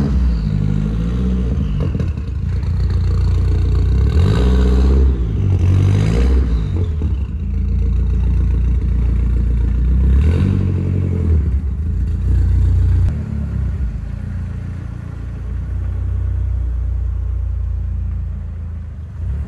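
Mk1 Audi TT's turbocharged 1.8-litre four-cylinder running and being revved, the engine note rising and falling about four to six seconds in and again around ten seconds in, then running more steadily and a little quieter.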